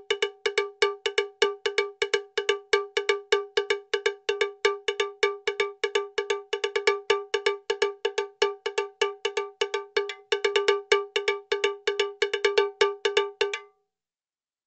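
A looped bell-like metallic tone, cowbell-like, struck rapidly about five times a second at one unchanging pitch. It cuts off abruptly about a second before the end.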